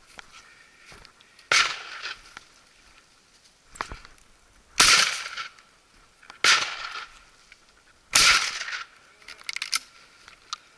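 Four shotgun shots at thrushes, spaced irregularly over about seven seconds, each a sudden crack that dies away within about half a second; the second is the loudest.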